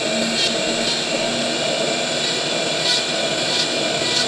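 Steady machine running noise with a constant hum and faint short high ticks every half second or so.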